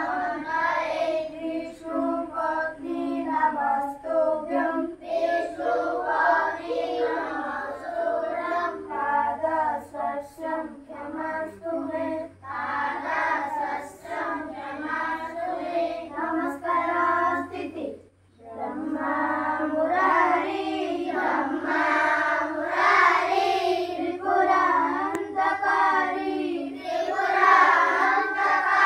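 A group of schoolchildren singing a morning prayer together in unison, with one brief pause about two-thirds of the way through.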